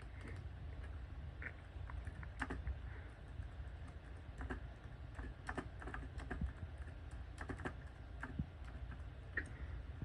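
Typing: irregular clicks of keys being pressed, entering a car's year, over a low steady background hum.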